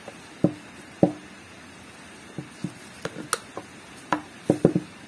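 Radiator cap and cap pressure tester being handled as the old cap is fitted for testing: about a dozen irregular sharp clicks and knocks, the two loudest about half a second and a second in, a quick cluster near the end. A steady hiss of heavy rain underneath.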